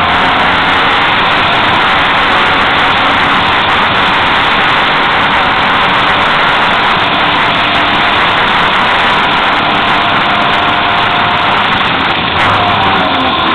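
Fiat 126's air-cooled two-cylinder engine running steadily under load, loud inside the car's cabin, with road and tyre noise.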